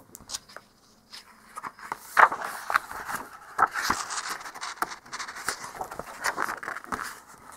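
Paper pages of a picture book being turned by hand, several at once: an irregular rustling and scraping with small crackles and taps that starts about a second in.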